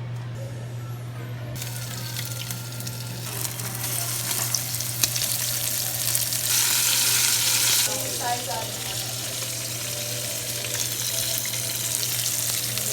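Chicken wings frying in hot oil, a steady sizzle that grows louder about six to eight seconds in, over a steady low hum.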